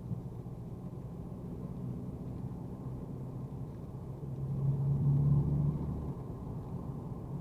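Mercedes-AMG A35's turbocharged 2.0-litre four-cylinder engine and road noise while driving, a muffled low drone. The engine note swells louder for a second or so about five seconds in, then settles back.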